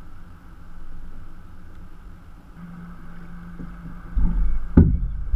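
Kayak paddle strokes on the water, with low thuds and splashing coming through the plastic hull. It starts about four seconds in, after a quiet stretch, and a sharp knock follows shortly after.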